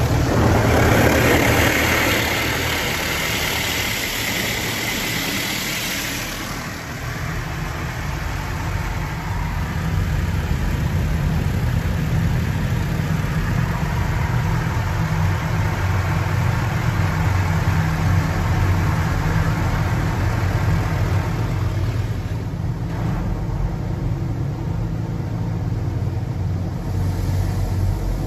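Tunnel car wash heard from inside the car: water spraying hard against the glass for the first six seconds or so, then a steady low rumble of the wash equipment and the idling car, with the spray hiss rising again near the end.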